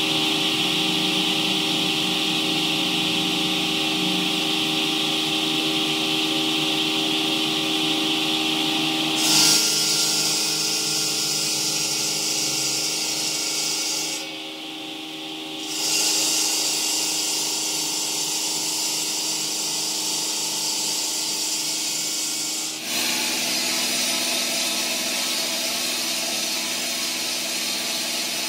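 A large water-cooled circular saw blade on a block cutter grinding steadily through a stone block, with a steady machine hum under the noise of the cut and the spray. The sound shifts abruptly a few times, with a brief drop in level around the middle.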